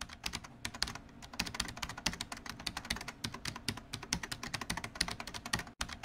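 Rapid typing on a computer keyboard: a dense run of keystroke clicks, many a second, starting abruptly, with a brief gap near the end.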